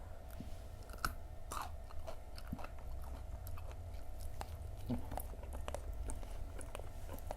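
Chewing of Indonesian fried snacks (gorengan): irregular crunches and wet mouth clicks.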